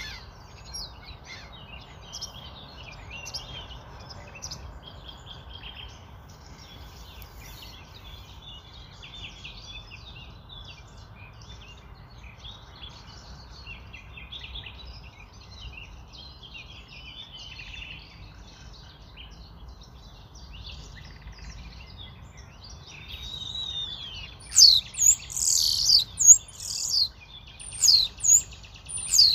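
Birds chirping and trilling over a steady low rumble, with several much louder sweeping calls in quick succession near the end.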